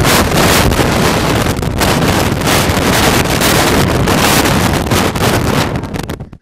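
Loud, even rushing noise that covers all other sound, stopping abruptly about six seconds in.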